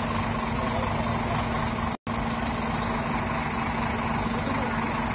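Heavy tractor-trailer truck's diesel engine idling steadily, with the sound cutting out for an instant about two seconds in.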